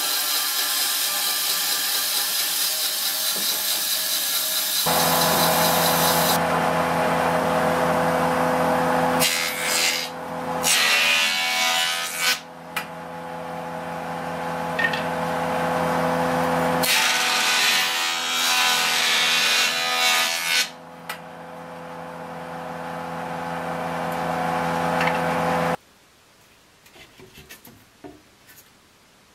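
A bandsaw cutting through an old weathered timber fence post. After about five seconds a jointer takes over, running with a steady hum, and the post is pushed over its cutters in loud passes. Near the end the machine noise stops, leaving only a few faint knocks of boards being handled.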